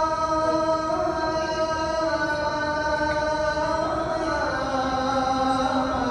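A single voice chanting in long held notes that glide slowly from one pitch to the next, moving lower about four and a half seconds in.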